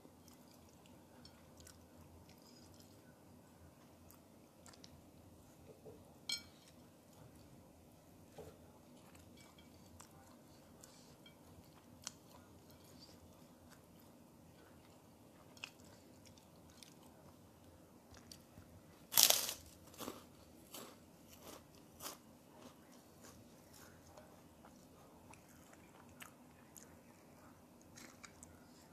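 Close-miked mukbang eating: chewing goat satay and rice, with soft mouth clicks and scattered crunches. The loudest burst of crunching comes about two-thirds of the way through.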